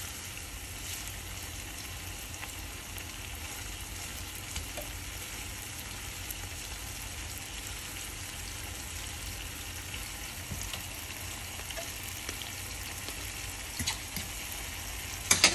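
Onion, bell pepper, scallion and tomato sizzling in oil in a frying pan, with a fork scraping and pressing against the pan as the tomato is crushed. A sharp knock near the end.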